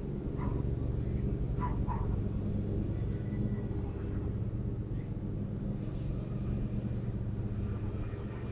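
A steady low outdoor rumble, with a few faint, brief higher sounds in the first two seconds.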